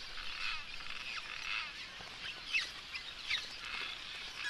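Cliff swallows calling at their mud-nest colony: a busy, overlapping chatter of short chirps and quick twittering notes.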